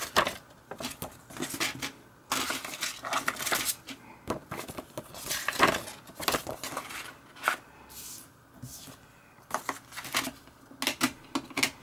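Hands handling a hard plastic DVD case and leafing through its paper insert: an irregular run of clicks, taps and paper rustles.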